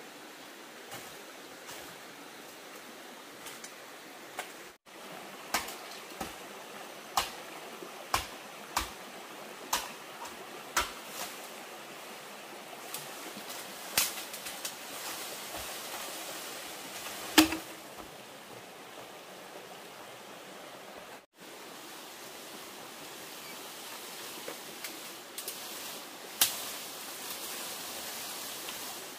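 Sharp knocks of a blade chopping into bamboo, about one a second for several seconds. Then a few louder, scattered knocks and clatters as the cut bamboo pole is handled, over a steady rushing background.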